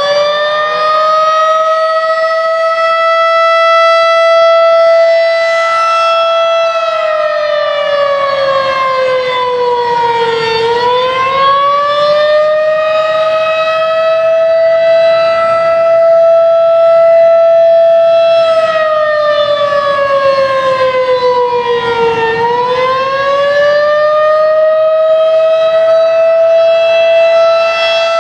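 Federal Signal 2001-SRN civil defense siren sounding a loud wail during a test: its pitch climbs, holds steady for several seconds, then sinks, dipping twice about twelve seconds apart.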